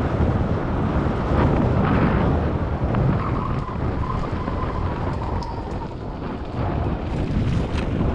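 Wind rushing over a GoPro action camera's microphone while riding a bike: a steady low rumble with a few light clicks, and a faint thin whine from about three seconds in for a few seconds.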